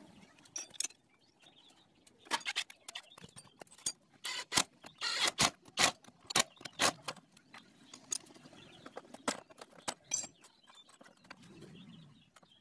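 Irregular metallic clicks and clinks of a hand tool and small engine parts being fitted at the cylinder-head side of a Honda Astrea Grand motorcycle engine, thickest in the middle and thinning out towards the end.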